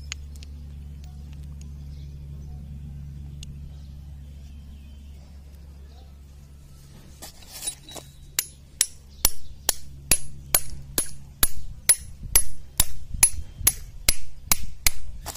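Rapid metal-on-metal hammer taps, about three to four a second, starting about seven seconds in: a 6203-2RS ball bearing being driven into a Kamco power tiller's fan-belt tension pulley. Before the tapping, a steady low hum.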